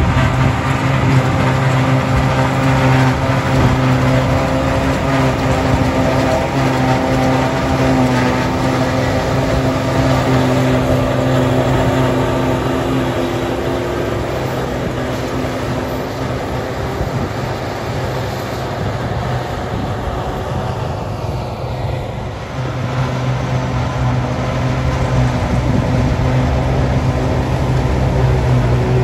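Fendt reverse-drive tractor's diesel engine and its mounted Reco Mengele SH 40 forage harvester running under load, chopping grass and blowing it into a silage trailer, with the Fendt 820 pulling the trailer running alongside. The steady engine drone and rushing chopper noise ease off a little past halfway, then build again towards the end.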